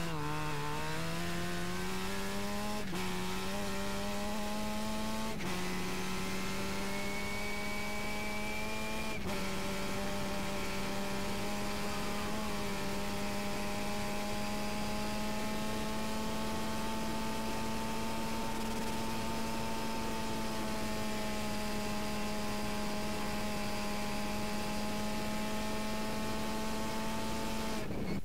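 Formula Russell/Mazda open-wheel race car engine, heard on board at full throttle. It pulls up through the gears, with the pitch rising and then dropping at each of three quick upshifts in the first nine seconds. It then holds a high, nearly steady note flat out, with wind and tyre rush underneath, and lifts off right at the end.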